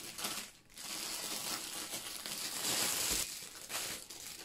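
Clear plastic packaging crinkling as it is pulled open and slid off a rolled-up item.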